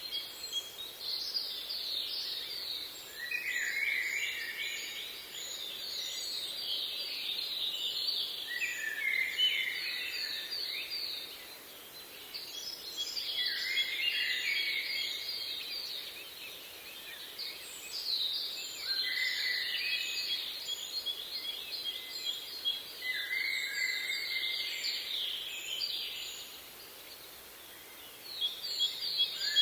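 Songbirds singing in repeated phrases of quick chirps and rapid trills, high-pitched, each phrase lasting a few seconds with short pauses between, over a faint steady outdoor hiss.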